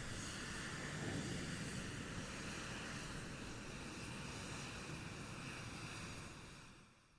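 Jet engine running with a steady rushing roar, fading out near the end.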